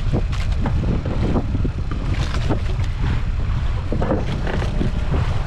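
Steady low rumble on a fishing boat at sea, from the boat's engine and wind on the microphone, with scattered knocks and clatter on deck.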